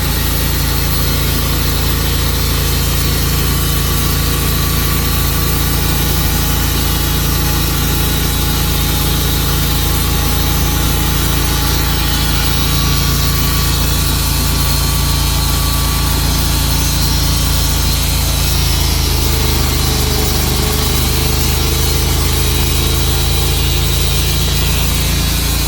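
Engine-driven portable sawmill running and sawing through a log: a steady engine hum under the noisy hiss of the blade in the wood. The engine note shifts slightly near the end.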